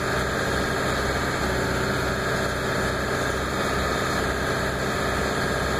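Ford 7.3 L Power Stroke V8 turbodiesel running steadily with the throttle held above idle. This is an engine that hiccups every so often at held throttle; the owner hopes the cause is the injector wiring harness under the valve cover.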